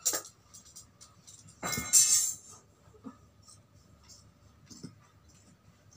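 Cloth and scissors being handled: a short loud rustle about two seconds in, then a few faint clicks of scissors at the fabric edge.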